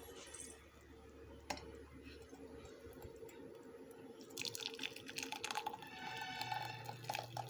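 Tea pouring and dripping, starting about four and a half seconds in, with a single light click about a second and a half in.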